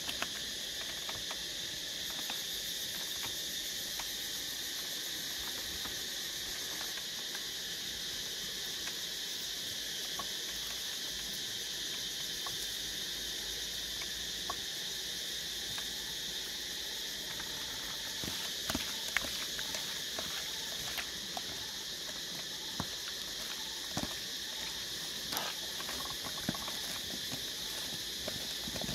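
A steady high-pitched insect chorus droning without a break. Light scattered taps and clicks come and go over it, more of them in the second half, from hands handling raw chicken livers and carrots on a woven bamboo tray.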